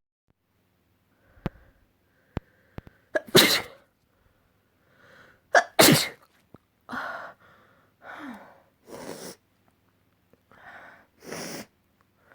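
A person sneezing: two loud sneezes about two and a half seconds apart, followed by several shorter, quieter breathy bursts. A couple of sharp clicks come before the first sneeze.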